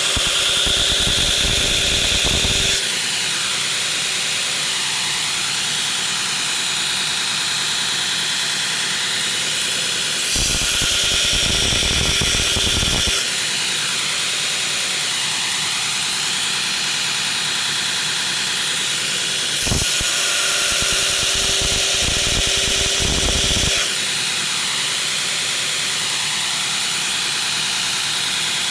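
Belt grinder running steadily, with three stretches of a few seconds each (at the start, about ten seconds in and about twenty seconds in) where the sound grows louder and fuller as a knife blade is pressed to the belt to grind its bevels.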